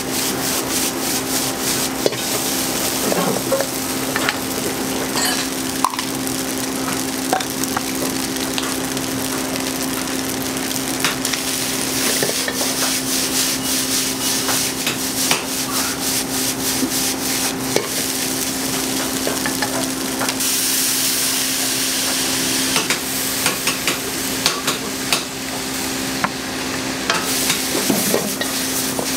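Fried rice sizzling in a wok over a gas flame while a wooden spatula stirs it, scraping and clicking against the pan many times. A steady low hum runs underneath.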